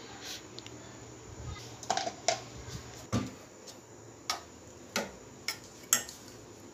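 A metal spoon working through thick chocolate syrup in a milk pan, with light clicks and taps of utensil against pot or bowl, about seven in all at uneven spacing, starting about two seconds in.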